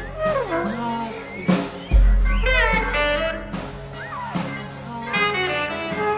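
Free-jazz improvisation: saxophone and trumpets made of plastic pipes play sliding, bending notes over scattered drum strikes, with a deep low boom about two seconds in.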